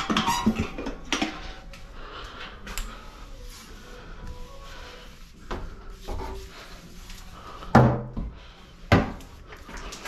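Handling noises in a small room: rustling and light clatter, with two sharp knocks, the loudest about eight seconds in and another about a second later, like cabinet doors or drawers being opened and shut.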